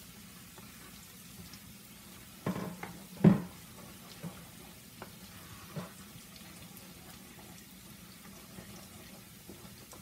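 A steaming pot of sauce simmering quietly on the stove, with a few sharp clanks of cookware. The loudest clank comes about three seconds in, just after a smaller one, followed by lighter knocks and a spoon stirring in the pot.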